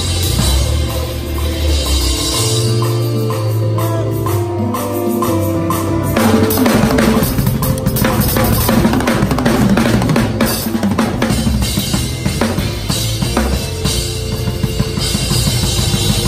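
An acoustic drum kit played busily and hard: snare, bass drum and toms with Zildjian K cymbals crashing. Underneath run held bass notes and chords that change pitch in steps.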